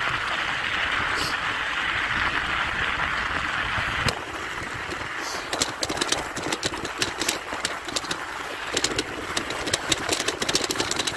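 Bicycle tyres rolling over snow: a steady hiss on the packed street, then, from about four seconds in, crunching over a rough snowy path with many sharp clicks and crackles.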